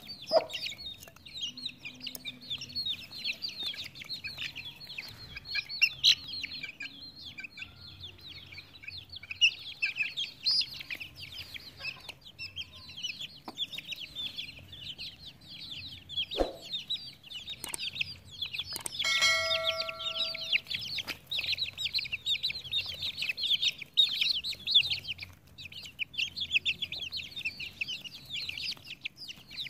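A group of young Aseel chicks cheeping in rapid, high-pitched peeps while pecking food from a hand. There is one longer, lower pitched call about two-thirds of the way through.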